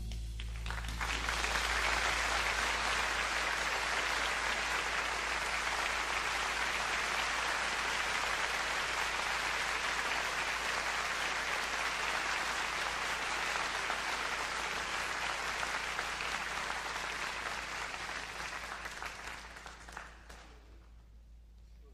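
Concert audience applauding as the song ends, swelling in within the first second, holding steady, then dying away near the end.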